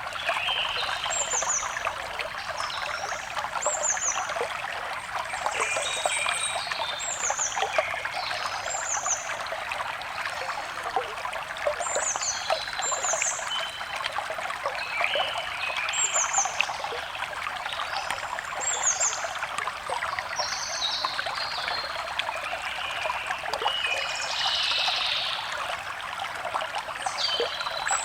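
Small stream trickling steadily, with forest birds calling over it in short, high, falling chirps repeated every second or two.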